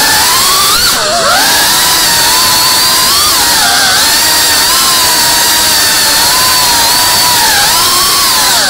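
FPV quadcopter's motors and propellers whining loudly, the pitch wavering up and down as the throttle changes, with sharp dips about a second in and again near the end.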